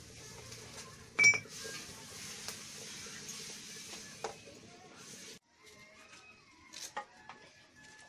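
Sharp metal clinks of kitchen utensils: one loud ringing clink about a second in over a steady hiss. After a sudden drop, a few lighter clinks near the end as a steel ladle is worked in a clay pot of gravy.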